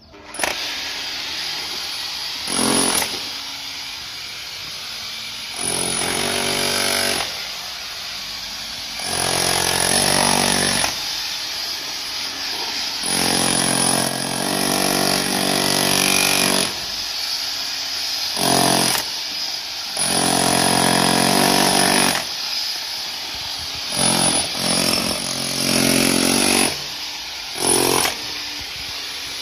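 Makita corded rotary hammer with a chisel bit hammering into a concrete block, breaking it up. It runs in a string of louder bursts, some a fraction of a second and some two to four seconds long, with lighter stretches between them.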